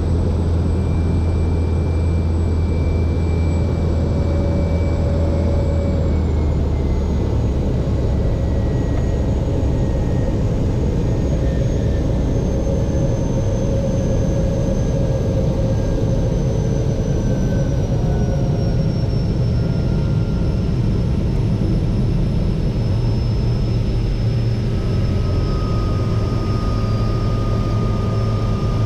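De Havilland Beaver floatplane's engine and propeller running while the plane taxis on the water: a steady low drone with a thin whine that slowly falls in pitch.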